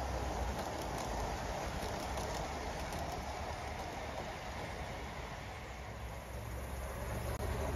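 A live-steam model train, an Aster B1 locomotive with its rake of coaches, running on the garden railway track, its wheels rattling steadily along the rails. The sound fades a little as the coaches pull away, then grows again near the end.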